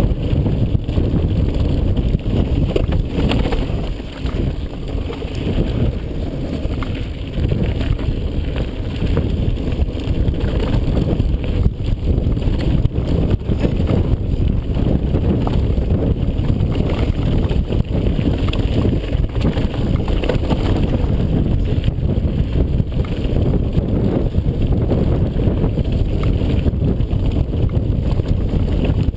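Continuous wind buffeting on an action camera's microphone during a fast mountain-bike descent, mixed with tyre noise on loose dirt and gravel and frequent small knocks and clatter from the bike over the rough trail.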